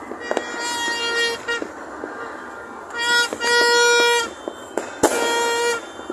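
A red plastic party horn blown by a child in three steady blasts of the same pitch, the middle one loudest and longest. Scattered fireworks bangs go off between and during the blasts.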